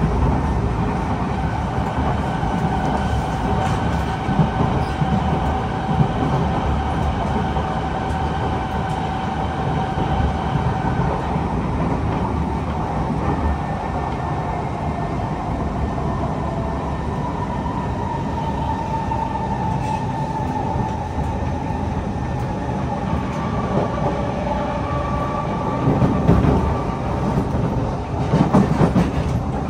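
Kawasaki C151 metro train running along the line, heard from inside the car: a steady rumble of wheels on rail with several steady whining tones that shift in pitch past the middle. A few louder knocks come near the end.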